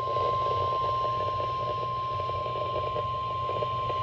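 NOAA Weather Radio 1050 Hz warning alarm tone: one steady, unbroken tone sounding ahead of a National Weather Service severe thunderstorm warning, over a low background hum and hiss.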